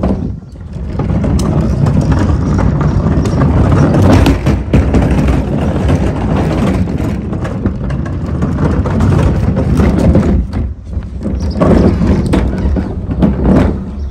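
Wheels of a plastic wheelie trash bin rumbling steadily as it is rolled over pavement, then a few short knocks near the end as it is brought to a stop.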